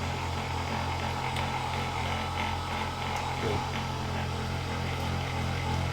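A steady low electric hum, like a small motor running, with a few faint clicks.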